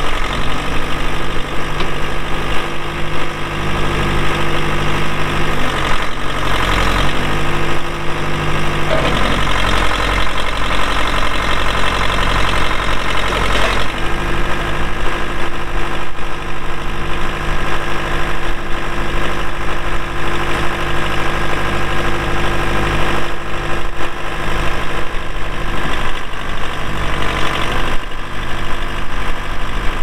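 Diesel engine of a 1975 Case 580B loader backhoe running steadily at low speed. Its note drops and wavers for several seconds between about six and fourteen seconds in while the backhoe boom is being worked, then settles back to a steady run.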